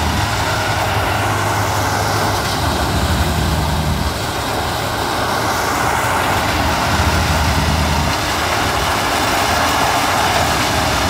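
Plasser & Theurer 08-32 U ballast tamping machine working on the track: a continuous mechanical clatter and hiss from the tamping units vibrating in the stone ballast, over the machine's diesel engine. The engine note deepens and eases in regular cycles, about every four seconds, as the machine moves from sleeper to sleeper tamping.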